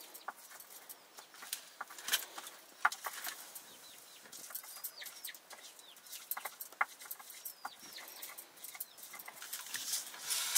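Domestic chickens clucking and chirping, with scattered short clicks and taps and a brief louder rustle near the end.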